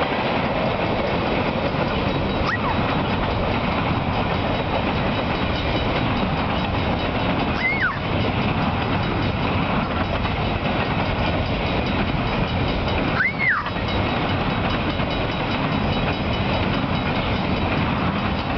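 Freight train cars, tank cars and then double-stack container cars, rolling past at speed: a steady loud rumble of wheels on rail with clickety-clack, and a few brief high squeals.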